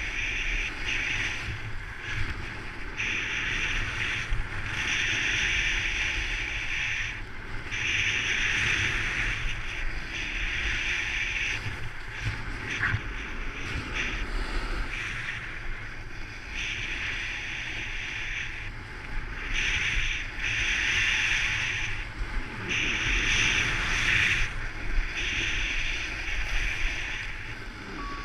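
Skis or a board sliding over packed snow: a hiss that swells and breaks off every second or two, as with repeated turns, over a steady rumble of wind buffeting the microphone.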